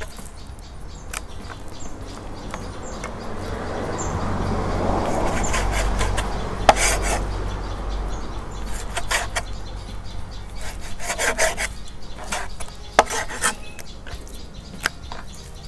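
Broad-bladed knife sawing through raw pork on a plastic cutting board, with scattered taps of the blade against the board. A rushing noise swells and fades in the middle.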